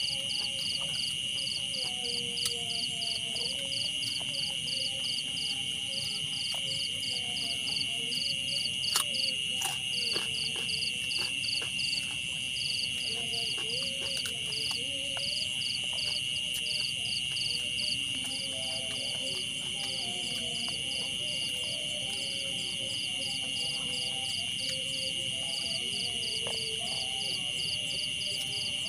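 Night insect chorus of crickets: one steady high trill, with a second insect chirping in even pulses about four times a second. Faint wavering lower calls run beneath, and a few sharp clicks come around the middle.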